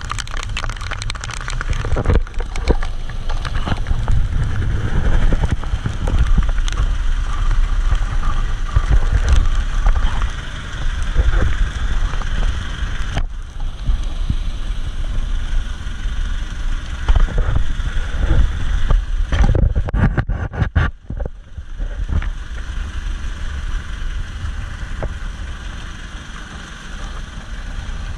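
Wind buffeting the microphone aboard an outrigger boat underway in choppy sea, a steady heavy rumble with gusts. It drops away briefly, after a quick rattle, about three-quarters of the way through.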